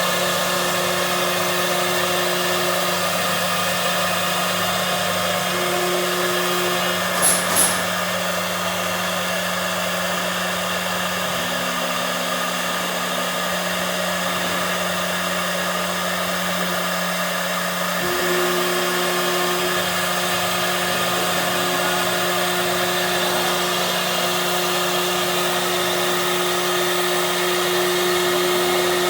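CNC machine running: a steady motor noise with a constant hum and higher tones that switch on and off as the machine moves. Two short clicks come about seven seconds in.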